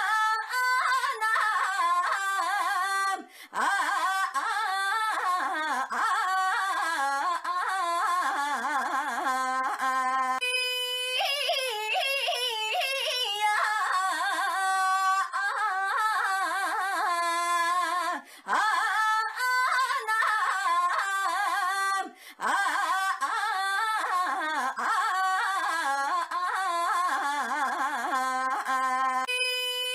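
A young woman's high-pitched, drawn-out 'ainyaaa' cry, its pitch wobbling up and down like yodeling. It breaks off for a moment a few times and starts again.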